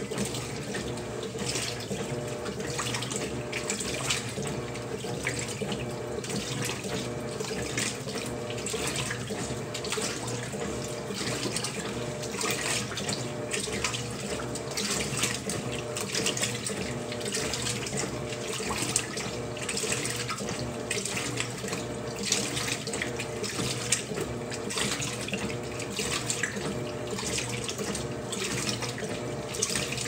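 Electrolux LTC10 top-load washing machine agitating on its low water level: continuous sloshing and splashing of water and clothes around the agitator, over a steady motor hum.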